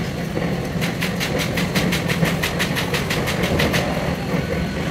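A machine running with a steady low hum. About a second in, a quick, evenly spaced run of sharp clicks, about five a second, starts and lasts about three seconds.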